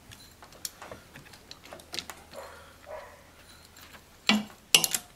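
Scattered light clicks and scrapes of a socket and ratchet on metal as a tight injector hold-down stretch bolt on a diesel engine is worked loose. Two louder sharp knocks come near the end.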